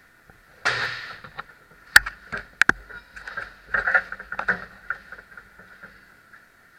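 Ice hockey on the rink: skate blades scraping across the ice in short rushes, with two sharp clacks of stick and puck about two seconds in, over a steady high hum.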